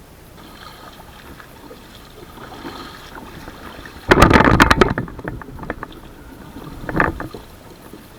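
Kayak paddle strokes in the water: a loud splash about four seconds in and a smaller one about three seconds later.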